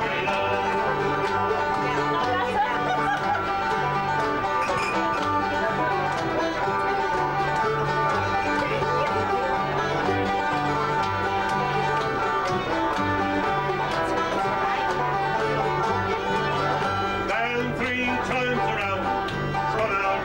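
Acoustic folk band playing an instrumental passage of a lively tune: banjo, acoustic guitar and fiddle over a steady, regular rhythm of bass notes.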